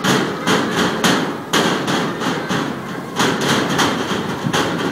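Repeated sharp bangs, about eight at uneven spacing with a short gap near the middle, each followed by a brief ringing decay.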